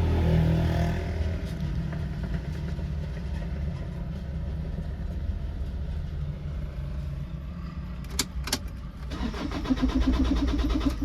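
A vehicle engine sound with a steady low rumble. A couple of sharp clicks come about eight seconds in, then a louder, rapid rhythmic rattling starts about a second later.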